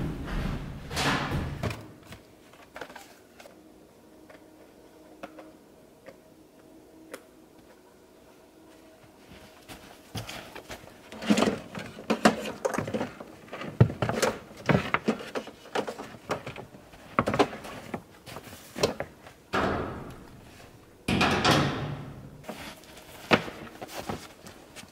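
Irregular clunks, knocks and scuffs of a portable welding machine and its cables being handled and set up, starting about ten seconds in after a quieter stretch, with a louder burst of scraping near the end.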